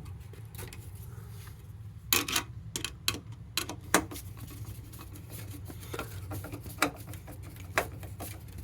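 Irregular clicks and light knocks of hand work on fire alarm mounting hardware, with louder taps about two seconds in and again near four seconds, over a steady low hum.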